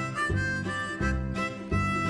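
Background instrumental music: held melody notes over a pulsing bass.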